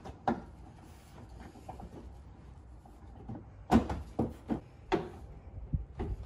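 Plastic car body parts knocking and clunking as they are handled and pushed into place at the front wheel well. One knock just after the start, then a cluster of sharper clunks from about three and a half seconds in.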